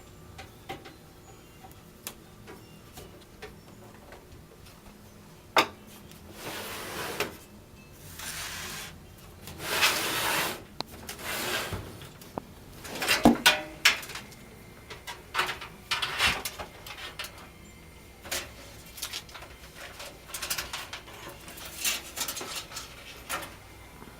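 Computer parts being handled and fitted into a metal PC case: scattered sharp clicks and several scraping, rubbing sounds, each about a second long.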